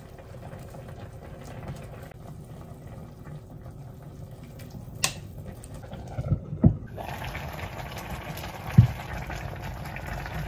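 Pot of Korean beef cabbage soup bubbling steadily on the hob, with a few clicks and knocks of the lid and a spoon against the pot in the second half.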